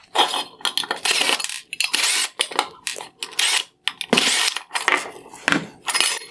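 Small metal screws and plastic parts of a headlight projector clinking and clattering while the projector is taken apart, in a quick run of sharp rattles and knocks.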